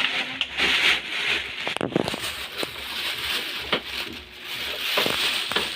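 Rustling of cardboard and plastic packaging being handled, with several sharp knocks and clicks scattered through it.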